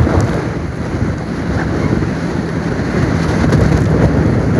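Wind rushing over the microphone on a moving boat, with a low steady motor drone underneath.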